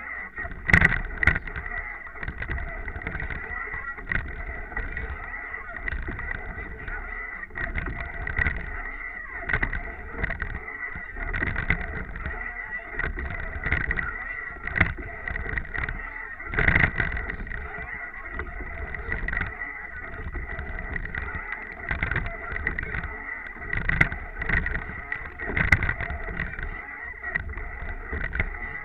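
Water rushing past the bow of a racing eight under way, heard through a bow-mounted camera with wind on the microphone, surging in loudness with each stroke about every one and a half to two seconds.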